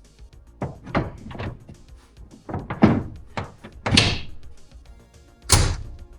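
Background music over a series of about six knocks and thuds from parts being handled and fitted, the loudest about four and five and a half seconds in.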